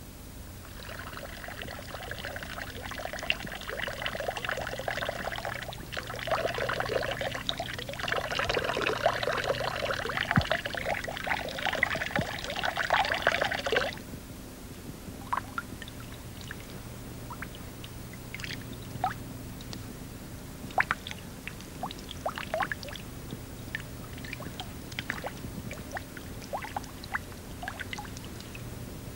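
Liquid pouring steadily for about thirteen seconds, then stopping suddenly, followed by scattered small drips and clicks, over a steady low hum.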